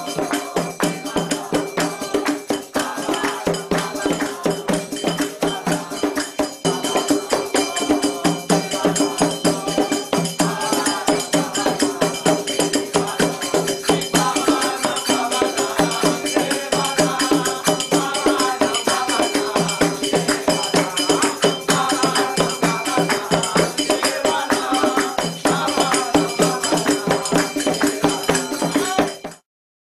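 Devotional kiirtan music: voices singing over a steady held drone and a fast, even rattle of hand percussion. The music cuts off suddenly near the end.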